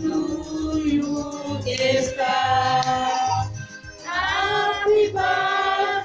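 Children and adults singing together to an electronic keyboard accompaniment with a steady beat, in held, drawn-out notes.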